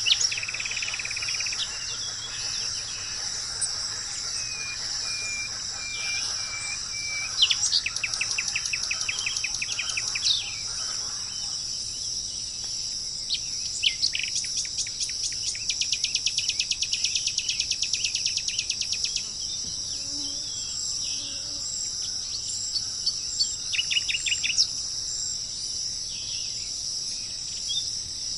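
Birds calling in a forest over a steady high-pitched drone of insects. The birds give short whistled notes and several rapid trills of quickly repeated notes.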